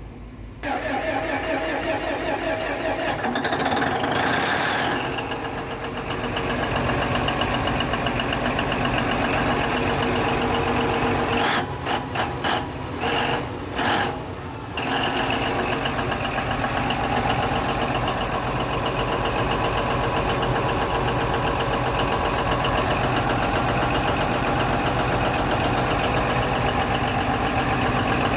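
Diesel engine of a Denyo DCA610SPM generator turning over during a start attempt on a generator that won't start. The steady mechanical running cuts in and out several times about halfway through, then carries on.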